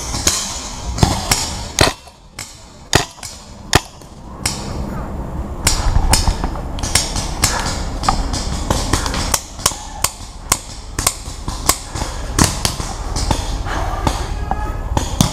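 Paintball guns firing during a game: a run of sharp, irregular pops, roughly one or two a second.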